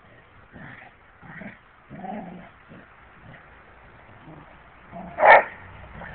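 Dogs play-fighting, with a few short dog vocalisations in the first couple of seconds and one loud, short cry about five seconds in.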